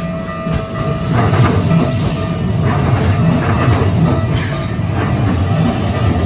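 Keikyu Line electric train passing over a level crossing: a heavy rumble of wheels and running gear that grows louder about a second in, with a thin, high wheel squeal in the first couple of seconds. A steady two-tone ringing from the crossing's warning bell sounds under it.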